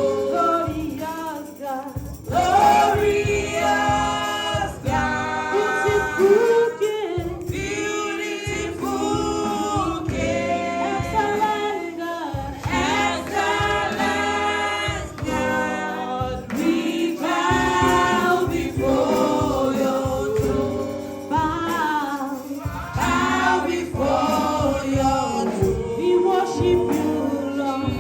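Group of voices singing a gospel worship song in praise of God, over a steady drum beat.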